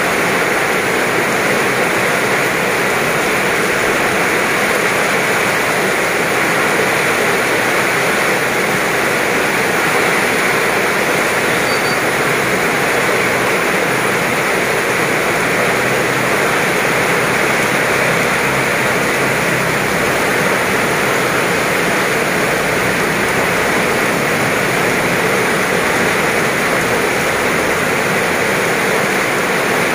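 Heavy rain pouring down onto the road, puddles and grass: a loud, steady hiss.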